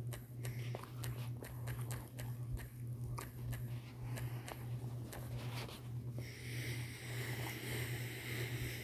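Steady low electrical hum with faint, irregular clicks of typing on a phone's touchscreen keyboard. A soft hiss comes up about six seconds in.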